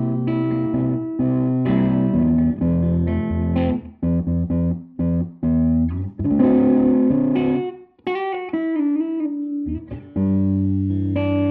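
Electric guitar played through a Tone King Gremlin tube amp on its rhythm channel: ringing chords and riffs with short stops. About two-thirds of the way in comes a brief run of single notes that slide in pitch.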